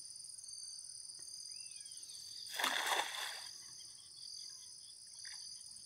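A cast net thrown from the water lands with a splash about two and a half seconds in, lasting under a second. Behind it runs a steady high-pitched chorus of insects.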